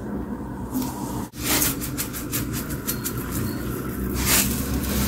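Stir-fried eggplant sizzling and crackling in a hot pan over a low steady hum, with a brief drop-out about a second in.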